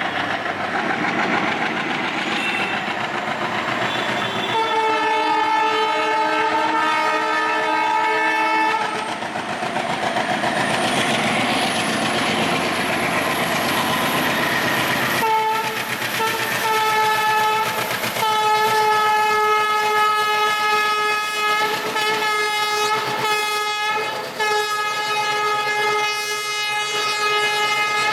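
WDG-3A diesel locomotive sounding its horn while accelerating a passenger express, over the rumble and clatter of the train. There is one long blast about five seconds in, two short toots around fifteen seconds, then two more long blasts that carry on to the end.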